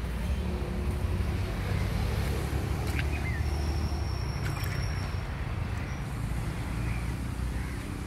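A steady low rumble, with a few faint high chirps and a thin whistle from about three to five seconds in.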